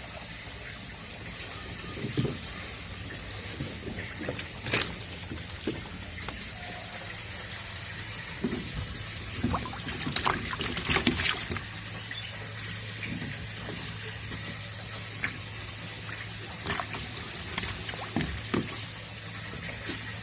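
Water trickling and splashing in short spurts, loudest in a cluster about ten seconds in, over a steady low hum.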